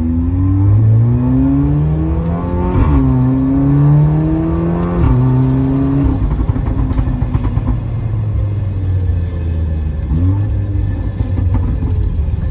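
Volkswagen Golf Mk7 engine heard from inside the cabin, revving up under acceleration. The revs drop sharply at two gear changes, about three and five seconds in, then settle to a steady lower drone as the car slows. Near ten seconds in the revs rise briefly as the gearbox, in manual mode, shifts down.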